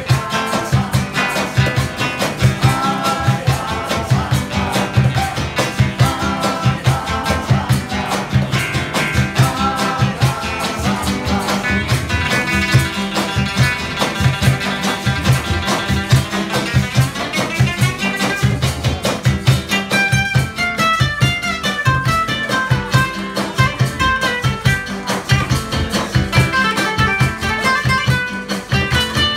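Live Latin American band music played on two nylon-string acoustic guitars, with a cajón keeping a steady beat. From about two-thirds of the way in, a guitar plays quick runs of single notes up and down over the strumming.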